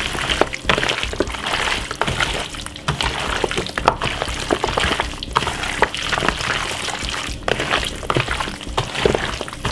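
Wet squelching and slapping of chunks of seasoned goat meat being tossed and rubbed by gloved hands in a large plastic bowl, in quick irregular squishes.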